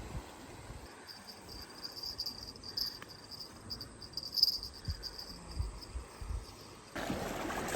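An insect trilling: a high, rapidly pulsing buzz for a few seconds. A few low thumps come after it, and a rush of noise starts near the end.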